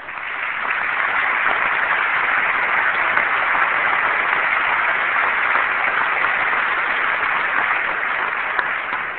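Audience applauding, swelling up over the first second, holding steady, and tapering off near the end.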